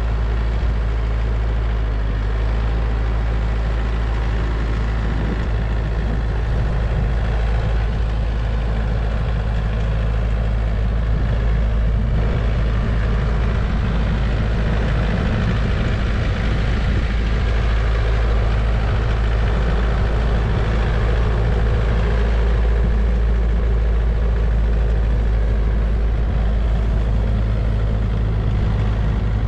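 Branson compact tractor's diesel engine running steadily at an even pace.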